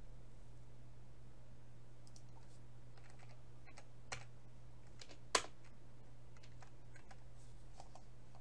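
Computer keyboard typing: scattered light key clicks, with one sharper, louder keystroke about five seconds in. A steady low hum runs underneath.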